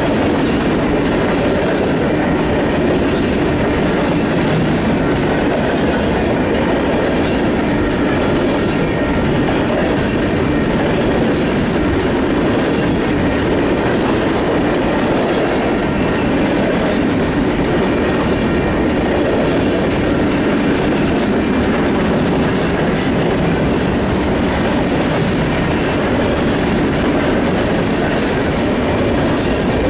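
Union Pacific train rolling past at steady speed: a continuous rumble of cars on the track, with wheels clicking over the rail joints.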